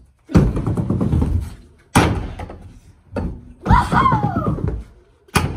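Trick scooter wheels rolling on a backyard ramp, with four hard landing slams about every one and a half to two seconds as the rider lands whip tricks.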